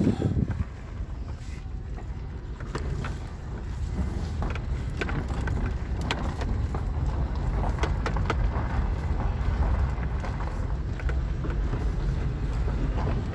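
A car driving over a rough gravel road, heard from inside the cabin: a steady low engine and tyre rumble with scattered knocks and rattles.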